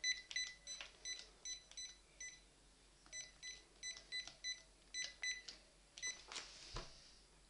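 Phone handset keypad beeping as a long number is dialed: many short key beeps in quick irregular succession, with a pause about two seconds in, and a soft knock near the end.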